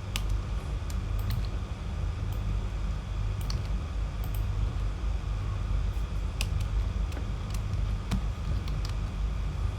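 Scattered sharp clicks of a computer mouse and keyboard, a dozen or so spread across the stretch, over a steady low background rumble.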